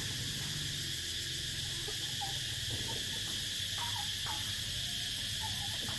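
Steady chorus of insects shrilling continuously, with a low pulsing drone underneath and a few faint short chirps.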